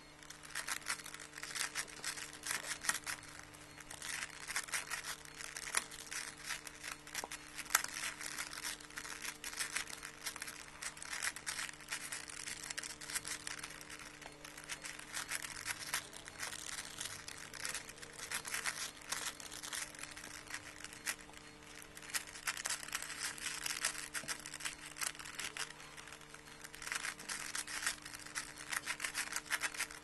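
A plastic 5x5x5 Rubik's cube being turned rapidly by hand: a dense clatter of clicks as its layers snap round, in runs with brief pauses between them.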